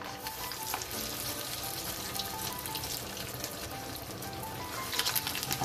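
Piyaju batter being added by hand to deep hot oil in a pot, the oil sizzling with a steady hiss and fine crackles that grow louder near the end. Soft background music plays underneath.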